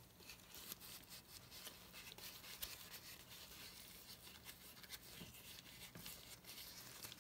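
Faint rubbing of gloved fingers working shoe grease into a leather knife sheath's retention strap, with small scattered scratchy ticks.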